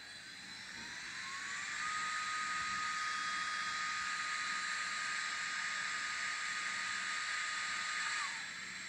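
Sampled electric-locomotive sound from a Doehler & Haass SD10 sound decoder, played through a tiny sugar cube speaker in an N gauge BR182 Taurus. A traction-motor whine rises in pitch over the first two seconds as the loco starts off, then holds steady over a hiss of blowers. Near the end the sound drops away.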